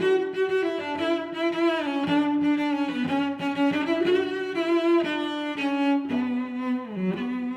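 Background music played on bowed strings, with cello and violin holding sustained notes that step from one pitch to the next.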